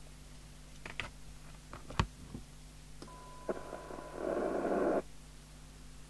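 A couple of sharp clicks, then a Maxcom 30E FM CB radio's speaker carries a weak steady test tone from a signal generator under hiss for about two seconds, cutting off abruptly. This is the receiver picking up a very weak signal of around 0.3 microvolts with its squelch set at threshold.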